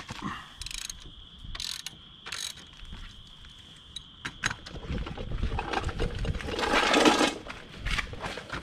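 Hand socket ratchet clicking in three short runs as bolts on a motorcycle engine are worked, then a few sharp metal clicks of tools being handled. Near the end comes a louder rustle and clatter as a steel crash bar is moved into place.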